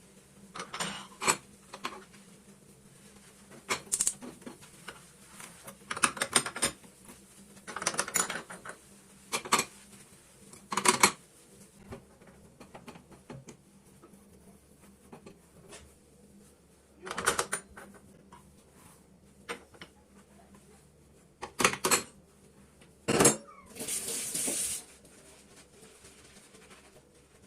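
Dishes and kitchen utensils clinking and clattering as they are picked up and set down, in scattered clusters of sharp knocks, with a brief hiss near the end.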